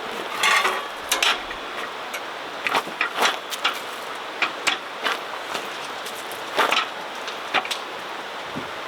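Camping gear being handled during setup: scattered clicks, taps and knocks of hard objects at an irregular pace, over a steady background hiss.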